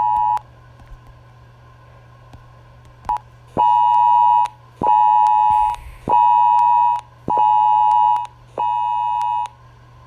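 Emergency Alert System-style two-tone attention signal played in pulses. One beep ends just after the start and a short blip comes about 3 seconds in. Then five even beeps follow, each about a second long, roughly one every 1.3 seconds, over a steady low hum.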